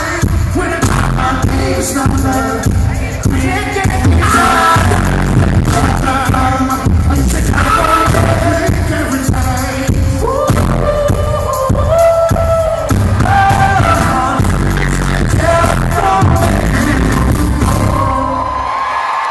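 R&B vocal group singing with a live band over a concert sound system, with a heavy bass and drum beat. The music stops near the end and the crowd starts cheering.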